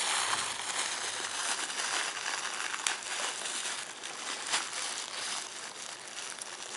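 Packaging crinkling and rustling as it is handled and pulled open by hand, with a few sharp crackles.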